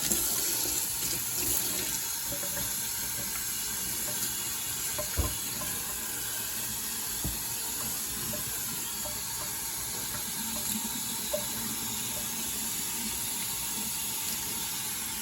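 Kitchen sink tap running steadily, the water splashing over a cat being washed in the sink. Two brief knocks come about five and seven seconds in.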